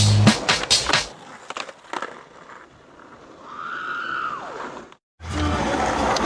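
Skateboard wheels rolling over brick paving, clacking sharply several times a second over the joints for about the first second, then rolling more quietly on smoother ground. Near the middle a short tone rises and falls; just before the end the sound cuts out for a moment and a louder, steady background with a low hum comes in.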